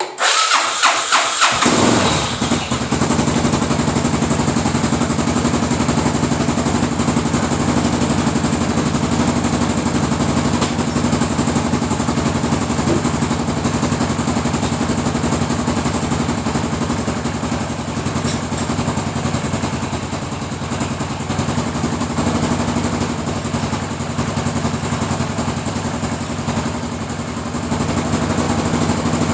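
Suzuki DR800's big single-cylinder engine started from cold, catching about two seconds in, then idling steadily with an even pulse. It has a knocking noise that the owner says appears only while the engine is cold and disappears at running temperature.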